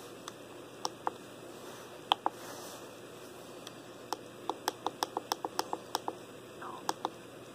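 Push buttons on a Walkera Devo 10 radio-control transmitter clicking under a thumb. A few single and paired clicks come first, then a quick run of about a dozen presses, about six a second, as the menu is stepped down.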